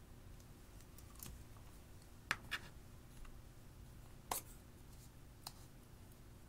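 A few sharp plastic clicks and taps from a makeup crayon being handled and its cap worked off. Two come close together a little past two seconds in, another just past four seconds, and a fainter one after five.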